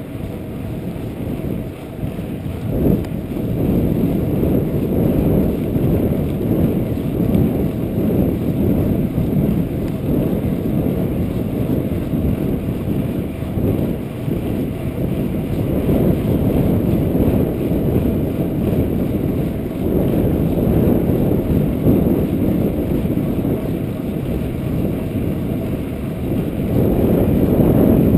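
Steady low wind rumble buffeting a chest-mounted GoPro's microphone from the rider's own speed on a moving bicycle. It grows louder near the end.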